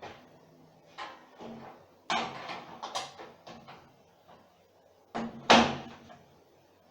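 Irregular knocks and clunks of hard parts being handled, with a cluster of sharp knocks around two to three seconds in and the loudest clunk about five and a half seconds in.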